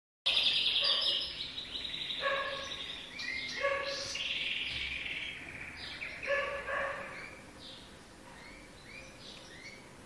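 Canary chicks chirping in a cage: a run of high chirps and short repeated calls, loudest in the first few seconds and fading after about seven seconds.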